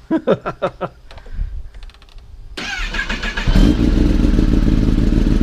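Kawasaki ZX-10R inline-four engine being started. A brief starter crank begins about two and a half seconds in, the engine catches about a second later and then idles loudly and steadily. The start tests the newly wired tether kill switch circuit.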